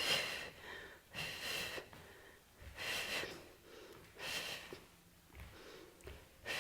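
A person breathing hard from fast exercise: forceful, breathy exhales repeating about every second and a half, the last ones weaker.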